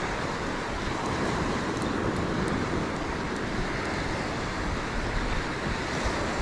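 Small surf waves breaking and washing up the sand in a steady hiss, with wind rumbling on the microphone.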